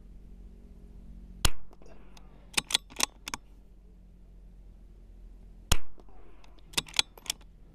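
.22 LR bolt-action rifle with a barrel tuner firing two shots about four seconds apart. Between and after the shots come quick metallic clicks of the bolt being worked to chamber the next round.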